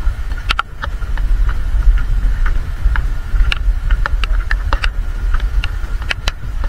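Uneven low rumble of wind buffeting the microphone, with scattered short high chirps and clicks over it.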